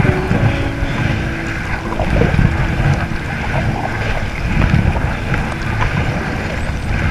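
Wind buffeting the microphone over the water noise of an Intex Challenger K1 inflatable kayak being paddled, with low swells of sound every second or two.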